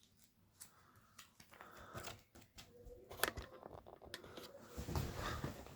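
Quiet handling noises as a card binder is shifted and set in place: scattered clicks and soft rustles, with a sharper tap about three seconds in and a busier patch of rustling near the end.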